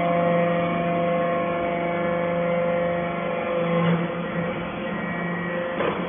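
Electric motor and hydraulic pump of a metal-chips briquetting press's power unit running steadily, a constant tone with several pitches, with a brief knock about four seconds in and another near the end.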